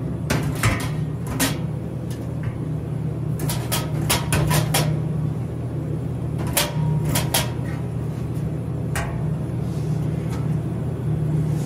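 Aluminium soda cans knocking and clattering against the metal can racks of a vending machine as they are handled and loaded back into a column: scattered sharp clunks, with a busy run of them a few seconds in and more later on, over a steady low hum.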